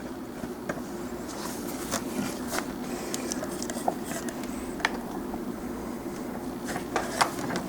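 Hard plastic parts of an Air Raid Transformers figure clicking and knocking as they are handled and tabbed together during its transformation: about eight short irregular clicks over a steady low hum.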